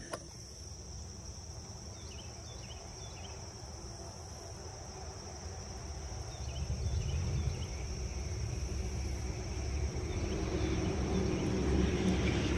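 Steady, high-pitched insect chorus, with a low rumble that grows louder from about halfway through.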